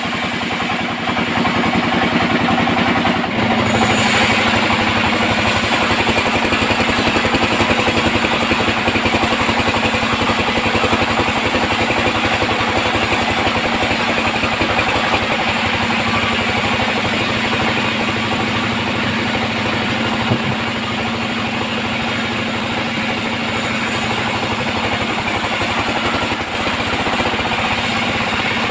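Sawmill band saw and its engine running steadily; the sound gets louder and brighter about three and a half seconds in.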